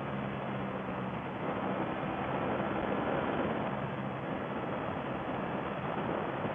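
Wind rush at highway speed over the onboard microphone of a Ducati Panigale V4S, with the V4 engine's steady hum in fourth gear partly buried under it as the bike slows slightly.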